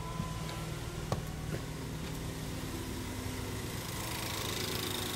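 Ford 1.6L EcoBoost turbocharged four-cylinder idling steadily, with a couple of light clicks about a second in. It grows a little brighter and louder near the end.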